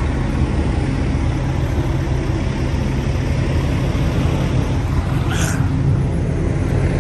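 Semi-truck diesel engine idling with a steady low rumble, and a brief high-pitched sound about five seconds in.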